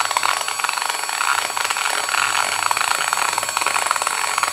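Dremel rotary tool at about 10,000 RPM grinding steadily with a tile-cutting bit inside a Stihl MS 660 chainsaw cylinder's intake port, roughening the port walls so JB Weld epoxy will grip.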